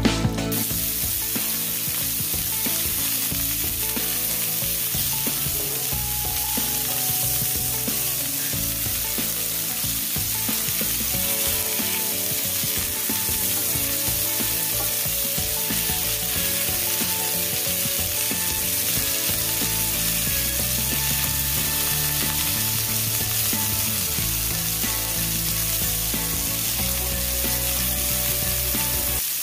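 Sausage patties frying in hot oil in a skillet, a steady sizzle.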